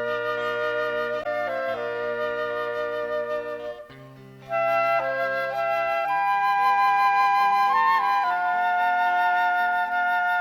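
Instrumental break of a Korean song's backing music: a held, stepping melody over sustained chords, which thins out briefly about four seconds in before coming back.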